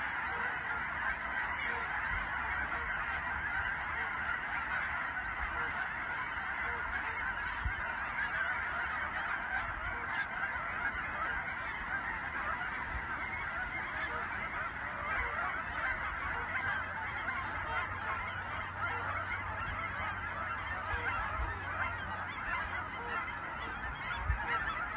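A large flock of geese honking in a dense, continuous chorus of many overlapping calls.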